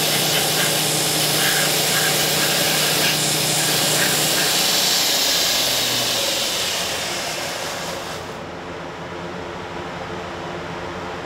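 Belt grinder running with a wooden axe handle held against the sanding belt to round off its corners: a loud, steady hiss of abrasive on wood over the machine's hum. The sanding noise fades about two-thirds of the way through, leaving a quieter steady hum.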